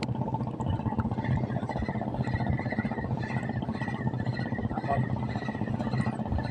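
Steady low rush of wind and water around a small open boat, with a faint, broken high whir from about a second in until near the end: a spinning reel being wound in against a hooked fish.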